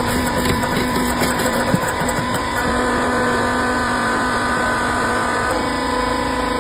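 Horizontal copper extraction machine running with a steady electric-motor hum over rough mechanical rattling; the tone shifts slightly about five and a half seconds in.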